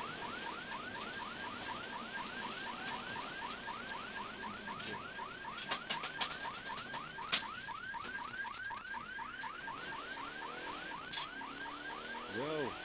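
Electronic siren on a rally car, a fast yelp of quickly repeated rising sweeps, about four or five a second, going on without a break. A few sharp clicks come about six and seven seconds in, and a brief low rising-and-falling sound comes near the end.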